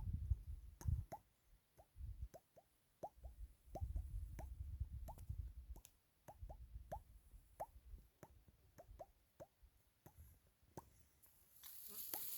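Irregular short plops, each rising quickly in pitch, like drops falling into water, over bursts of low rumble; a brief hiss near the end.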